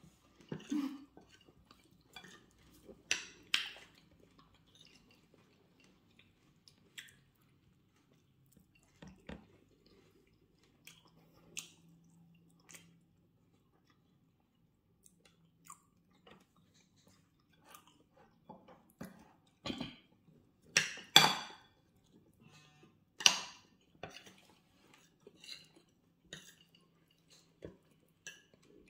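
Close-miked chewing of garri and beans with fried plantain, with a metal spoon and fork clinking and scraping on plates in scattered short taps. A few louder clinks stand out about two-thirds of the way through.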